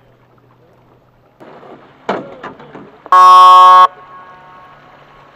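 A single short, loud horn blast about three seconds in, a race signal at the lap gate, with a brief loud clatter a second before it.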